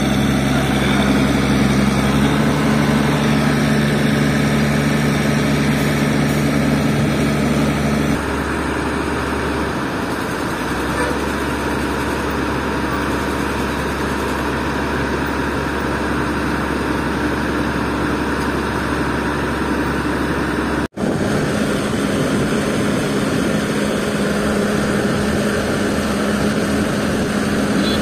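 Heavy diesel engine of a mobile crane running steadily while it hoists a precast concrete bridge girder. The hum changes character about a third of the way in, and the sound drops out for an instant about three quarters of the way through.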